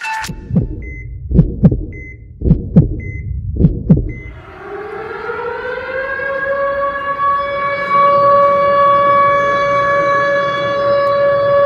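A heartbeat sound effect of three double thumps with faint short beeps, then a civil-defence siren winds up about four seconds in and holds one steady tone: the 09:05 siren of the 10 November Atatürk commemoration, marking the moment of silence.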